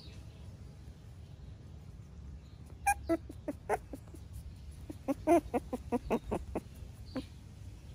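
A series of short, sharp animal calls: a few about three seconds in, a quicker run a couple of seconds later, and one more near the end.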